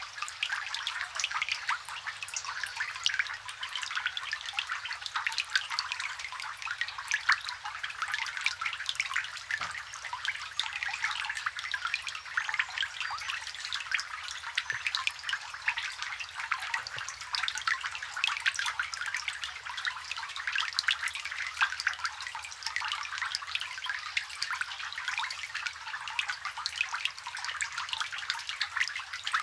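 Close-up rain falling on water: a dense, steady patter of countless small drops plinking onto the surface.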